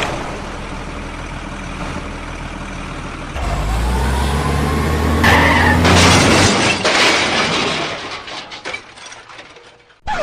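Heavy truck engine sound starting up and running with a low, steady note, then a long hiss like an air brake releasing through the middle, fading out near the end.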